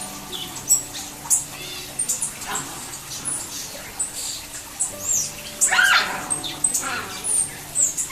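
Several small birds chirping and calling at a feeder: short, high chirps and whistles overlapping throughout, with a denser run of louder sweeping calls a little past the middle.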